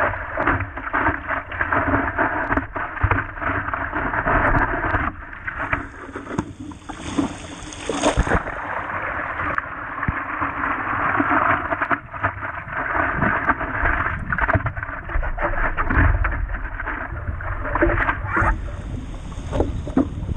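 Seawater rushing and splashing against the hull of a 12'6" scow-nosed stand-up paddleboard running downwind, with many irregular slaps and knocks as chop hits the board and the paddle strokes into the water.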